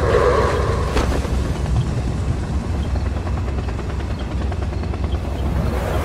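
A steady, loud low rumble like heavy machinery running, with a single sharp crack about a second in.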